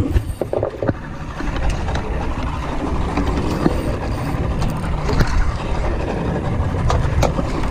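Large fishing reel cranked by hand to bring up a hooked fish, its gears and ratcheting mechanism clicking, over a steady low rumble.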